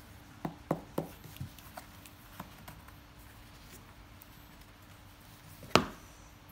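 Hard-shell camera carry case with a foam insert being handled: a few light taps and knocks in the first second and a half, then the lid shut with one sharp, loud knock about two thirds of the way through.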